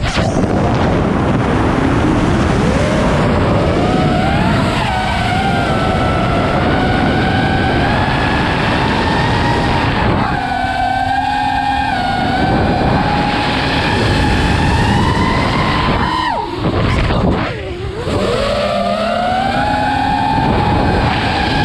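Five-inch FPV quadcopter's brushless motors (2207.5-size, 1922 kV, on 6S) spinning 5-inch props, a whine whose pitch rises and falls with the throttle over a rush of wind on the microphone. About three-quarters through, the whine drops away briefly, then climbs back up as the throttle returns.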